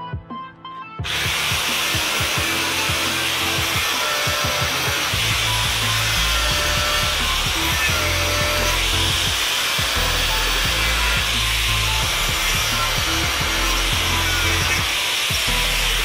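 Angle grinder grinding steel, a steady harsh grinding noise that starts about a second in and runs on. Background music is underneath.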